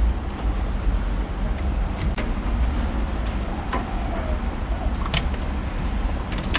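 Air conditioner running with a steady low rumble, with a few light clicks.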